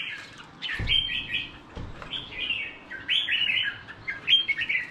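Red-whiskered bulbuls chirping, a run of short, quick call phrases one after another, with a brief low knock about a second in.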